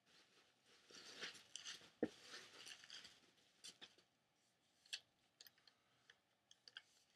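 Faint rustling of plastic packing wrap being pulled off resin doll parts, with one sharp tap about two seconds in and a few faint clicks later.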